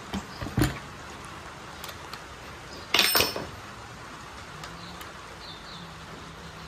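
Light metal clicks of a hex key and bolt being worked on the side of a DeWalt cordless framing nailer. One louder clatter comes about three seconds in.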